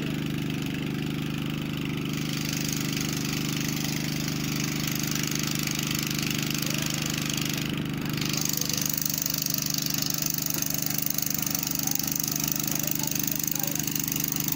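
ACE F15 pick-and-carry crane's diesel engine idling steadily, a little louder from about eight seconds in.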